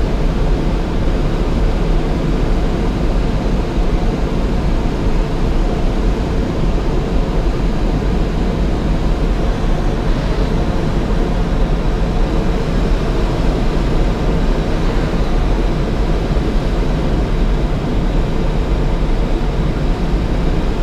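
Steady rush of airflow around a glider's cockpit canopy in engineless gliding flight, heard from inside the cockpit.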